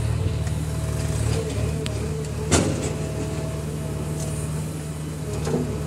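JCB backhoe loader's diesel engine running steadily, with one sharp knock about halfway through.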